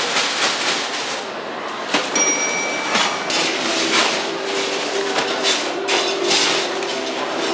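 Busy shop-counter bustle: a dense din of clatter and handling noise, with an electronic beep lasting nearly a second about two seconds in and a low steady tone from about three seconds on.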